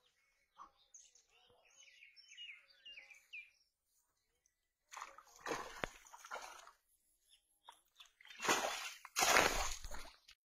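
Water splashing and churning as a cast net with fish thrashing in it is hauled in to the bank. The splashing comes in bursts from about five seconds in and is loudest near the end. Birds chirp in the first few seconds.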